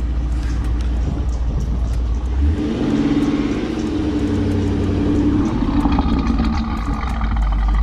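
V8 car engine idling, revved up about two and a half seconds in and held for a few seconds, then easing back to idle near the end.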